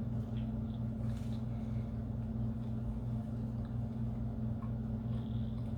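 Steady low hum of an idling car engine, heard from inside the cabin, with faint chewing of a chicken sandwich over it.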